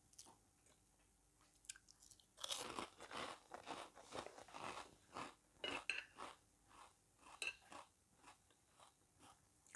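Close-miked chewing of crunchy fried food, mouth closed: quiet at first, then a dense run of crunches from about two and a half seconds in, thinning to scattered crunches later.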